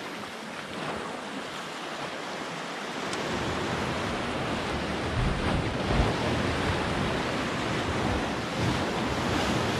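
Sea surf washing and breaking against the rocks, with wind buffeting the microphone more strongly from about three seconds in.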